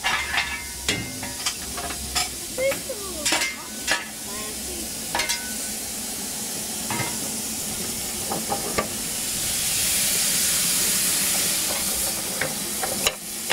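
Steam hissing steadily from Palmerston, a narrow-gauge steam locomotive built in 1864, standing in steam; the hiss swells about two-thirds of the way through. Several sharp knocks and clanks in the first five seconds.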